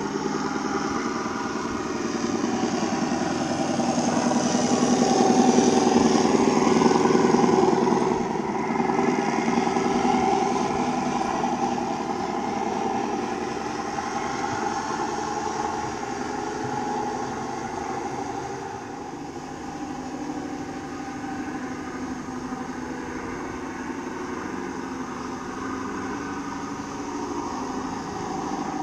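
Simulated diesel engine sound from a radio-controlled model Scania truck's sound module, played through its small speaker while the truck drives. It grows loudest as the truck passes close, about four to eight seconds in, then fades steadily as it drives away.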